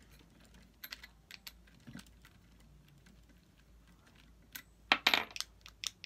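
Small plastic and metal parts clicking and tapping as an RC truck's brake disc and caliper are pressed onto the wheel hub by hand: a few light clicks, then a louder run of clicks about five seconds in.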